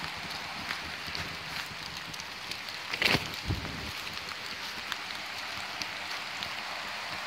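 Steady rain falling on an umbrella, with the rush of the flooded creek behind it. About three seconds in comes one sudden short noise, which the walker takes for her umbrella catching on a branch.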